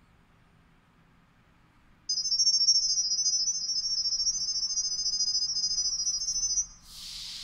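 High-pitched electronic configuration tone from the WiFi doorbell's network setup. It starts about two seconds in and holds steady for about four and a half seconds, then breaks off into a burst of hiss lasting about a second.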